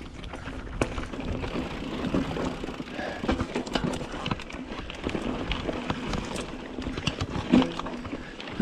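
Mountain bike riding over rough dirt trail: a steady rumble of tyres on the ground with many sharp knocks and rattles from the bike over bumps, and a louder thump near the end.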